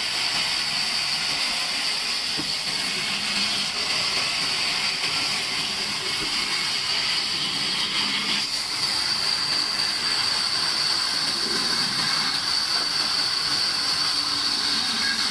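Large vertical band saw running and cutting through log sections: a steady hissing noise with a high-pitched band, which narrows to a steadier high tone about eight seconds in.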